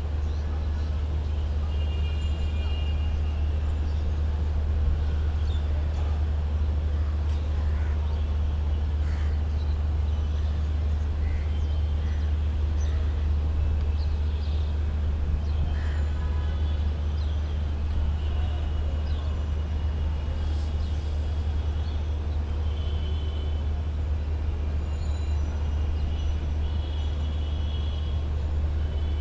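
City street traffic ambience: a steady low rumble of road vehicles, with faint short high tones and ticks coming and going over it.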